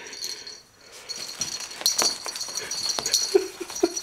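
A cat chewing and rustling a plastic bag: a string of sharp crinkles and clicks starting about a second in, with a couple of short cat vocal sounds near the end.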